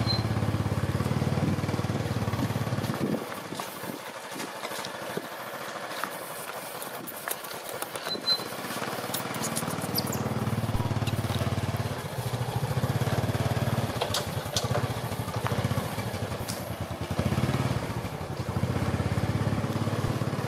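Honda motorbike's engine idling steadily, fading out about three seconds in and coming back about ten seconds in, with a few light clicks and knocks during the quieter stretch.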